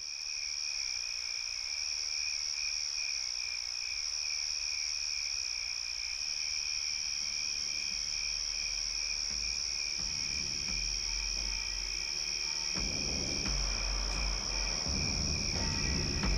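Steady, high insect chirring with a fast pulsing trill underneath. A low rumble comes in about halfway and grows a little louder toward the end.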